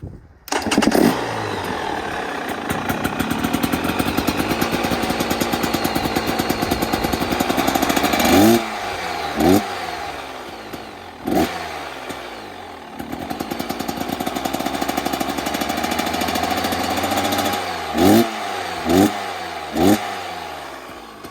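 2023 KTM 250XC two-stroke dirt bike engine starting and idling through an FMF Fatty expansion chamber and Turbinecore 2.1 silencer. It catches about half a second in, then settles to a pulsing idle, with six short throttle blips: two around the middle, one a little later, and three in quick succession near the end.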